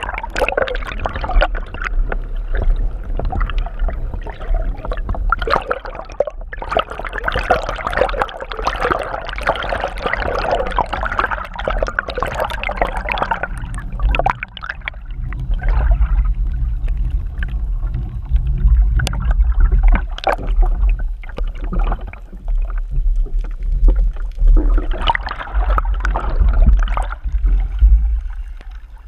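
Water sloshing and gurgling over a steady low rumble, with scattered knocks.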